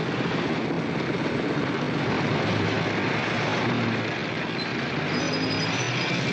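Street traffic, with cars driving past close by. It is a steady, dense noise that starts abruptly and holds throughout.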